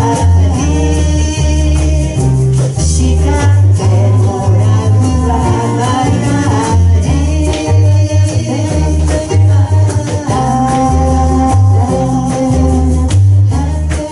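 Live band playing an upbeat pop song: bass guitar, drums with a steady beat, keys or guitar, and lead vocals.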